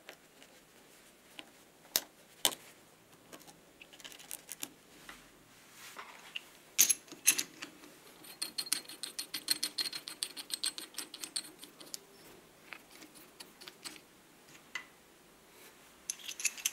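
Hand-tool work on a Makita TD021D impact driver's spindle in a bench vise: scattered metallic clicks and taps, then a few seconds of rapid, evenly spaced ringing ticks in the middle as a small screw-type bearing puller is worked to pull off the stuck bearing.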